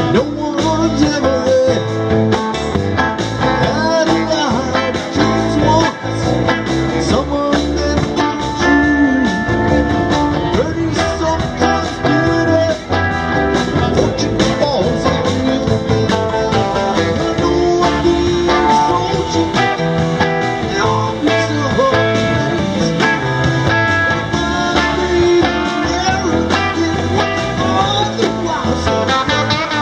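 A rock band playing live: electric and acoustic guitars over a drum kit and keyboard, a steady groove at full volume.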